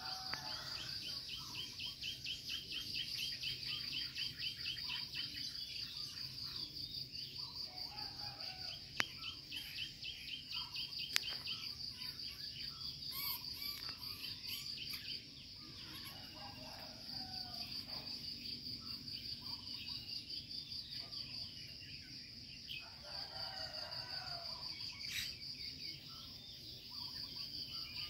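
Insects trilling steadily at a high pitch, joined now and then by a faster pulsing chirp, with birds calling at intervals and two brief clicks partway through.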